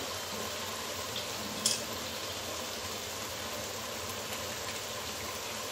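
Masala of onion paste, yogurt and spices simmering in a kadai, a steady bubbling hiss, with one brief tick about one and a half seconds in.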